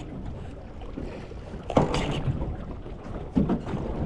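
Wind buffeting the microphone over water slapping against an aluminium boat's hull. There is a sharp knock a little under two seconds in, a second one just after, and a few lighter knocks near the end.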